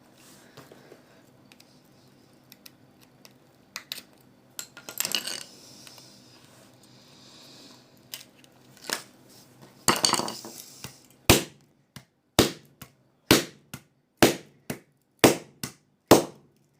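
Clicks and short scraping on a mobile phone's plastic casing as it is worked at, then six sharp knocks about a second apart as the phone is struck repeatedly.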